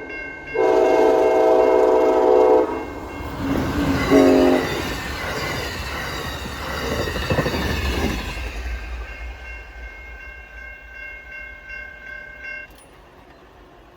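Amtrak passenger train sounding its horn, a long blast and then a short one, as it rushes past at speed; the noise of the passing train then fades away over several seconds.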